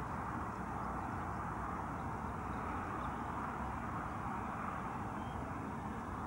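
Steady outdoor background noise, an even hum and hiss with no distinct events.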